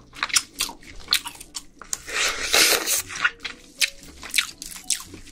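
Close-miked eating of cooked red snow crab: wet chewing and biting with sharp crackles, and a longer slurp a little past two seconds in.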